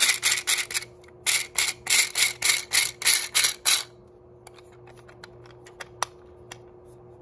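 Ridged thumbwheel of a 3D-printed plastic adjustable stock being rolled by finger, giving a rapid run of rasping clicks at about five a second as it turns the internal gears that drive the threaded rods and pull the stock back in. The rasping pauses briefly about a second in, resumes, and stops near four seconds in, leaving only faint scattered handling clicks.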